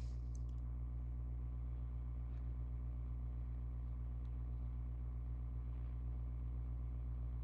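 Steady low electrical hum with a buzzing row of overtones, unchanging throughout, with a few faint clicks now and then.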